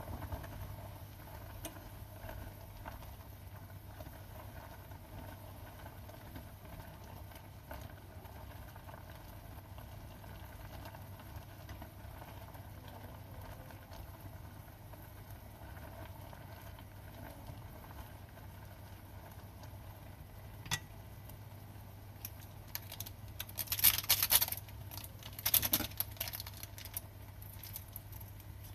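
Instant noodles simmering in boiling water in a stainless saucepan, a steady low bubbling over a constant low hum, with chopsticks stirring. About two-thirds of the way through there is one click, then two short bursts of sharp utensil clatter.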